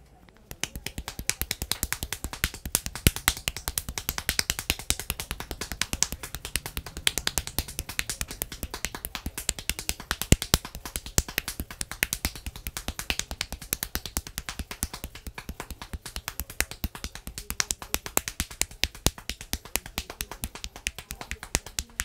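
Rapid crackling of hair cracking: a barber tugs and rolls tufts of the client's hair between his fingers close to the scalp, many sharp cracks a second. It starts about half a second in and stops abruptly near the end.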